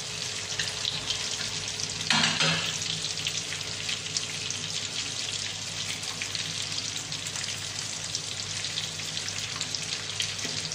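Butter and lemon sauce sizzling in a frying pan as fried salmon pieces are added and stirred about with a spatula and spoon, the sizzle briefly louder about two seconds in.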